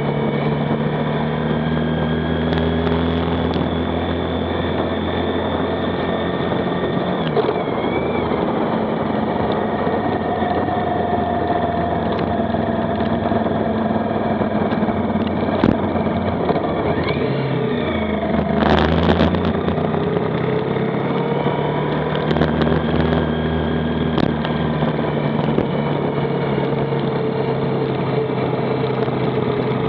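Motorcycle engine running on the move, its pitch holding, then dropping and climbing again twice as the bike changes speed and shifts gear, with a brief rush of noise about two-thirds of the way through.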